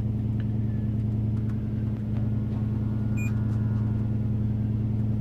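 Nissan Titan pickup's engine idling steadily, a low even hum heard inside the cab. A short electronic beep sounds about three seconds in.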